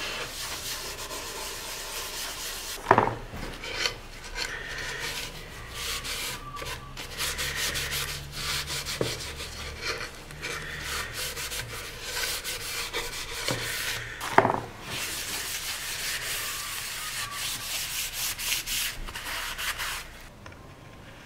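A cloth rubbed back and forth over the wood of a small wooden box, wiping on a finish, in irregular scrubbing strokes. Two sharp knocks of wood stand out, about three seconds in and about two-thirds of the way through.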